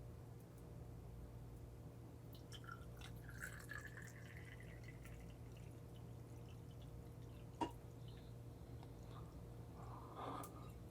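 Tequila poured faintly from a bottle into a measuring jigger, the pitch rising slowly as it fills. A single sharp click follows about two-thirds of the way through.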